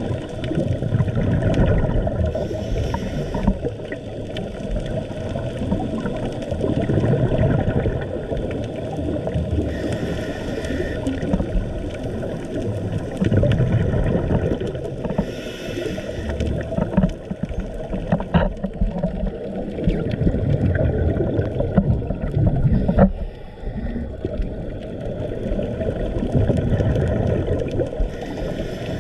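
Muffled underwater rumble of a scuba diver's exhaled bubbles, swelling and fading every few seconds, with brief hissing from the regulator now and then. Scattered faint clicks.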